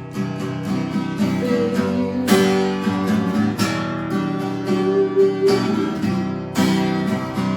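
Acoustic guitar played solo, chords picked and strummed, with a hard strummed chord about two seconds in and another near the end.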